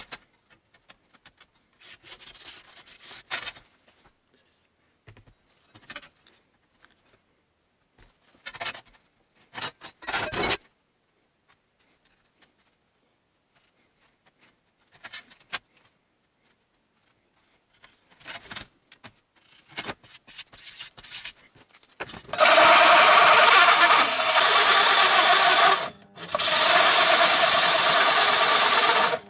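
Scattered scraping, snipping and clicking of a copper sheet being cut with hand shears and marked on a workbench. After about twenty-two seconds a bench drill press with a hole saw bites into the copper sheet, a loud steady cutting noise that breaks off briefly once and starts again.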